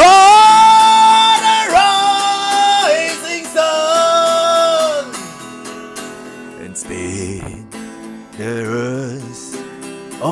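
Solomusic STK-1 Strat-style kit electric guitar playing a lead line: a note bent up into place, then long held notes that step down in pitch, followed by quieter, wavering phrases.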